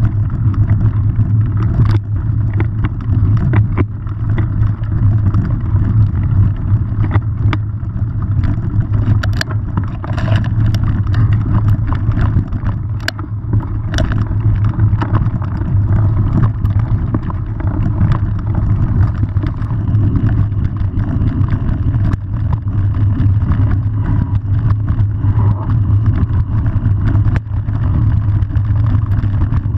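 Mountain bike ridden over a rough dirt trail: a steady low rumble of wind and ground noise on a camera mounted on the bike, with scattered rattles and clicks as the bike jolts over bumps.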